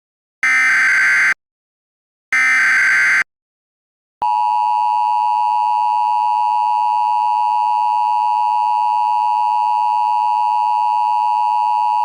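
Emergency Alert System tones. First the last two of three raspy SAME header data bursts, each just under a second long with short gaps between them. Then, after about a second of silence, the steady two-tone EAS attention signal starts about four seconds in.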